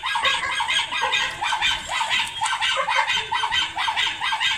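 Domestic fowl calling: many short, overlapping calls, several a second.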